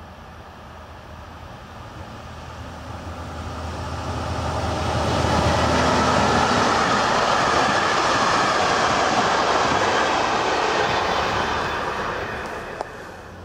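WLE 22 diesel locomotive rumbling past at the head of a container freight train. The sound swells as the train approaches, holds at its loudest while the wagons roll by, and fades away near the end.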